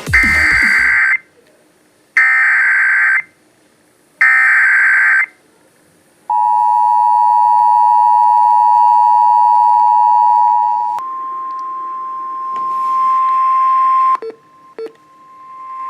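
Emergency Alert System header: three short bursts of SAME data tones, each about a second long and a second apart. Then comes the two-tone EAS attention signal, held for nearly five seconds. It cuts straight into a steady single higher tone, with a patch of static hiss and two clicks near the end.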